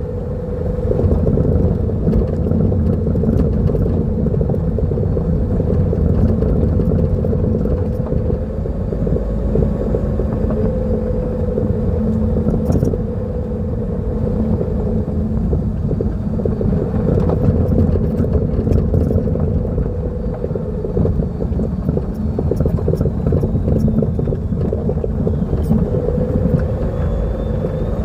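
Lada Vesta NG on the move: a steady rumble of road and running noise with a humming drone, and now and then a faint short knock from the front shock-absorber struts, which are worn.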